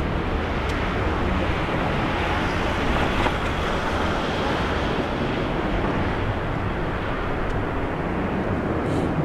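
Boeing 737-800's CFM56-7B turbofan engines at takeoff thrust during the takeoff roll, a steady even jet noise.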